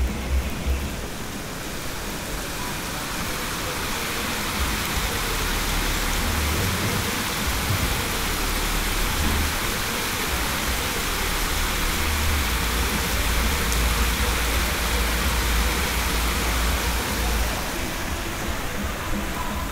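Steady rain with gusting hurricane wind buffeting the microphone in uneven low rumbles. It builds over the first few seconds and eases a little near the end.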